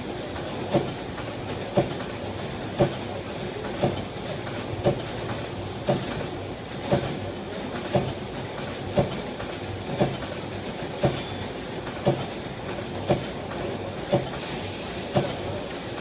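Laser welding machine working on springs, with a sharp click about once a second over a steady mechanical hum and hiss.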